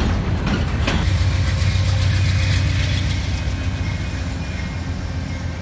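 A train crossing a railroad bridge. Wheels click over the rail joints in the first second, followed by a steady low rumble.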